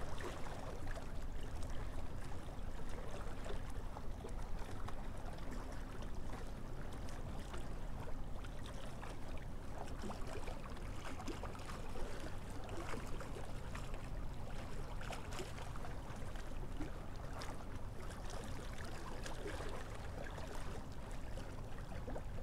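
Steady low rush of moving water, with faint scattered clicks and ticks.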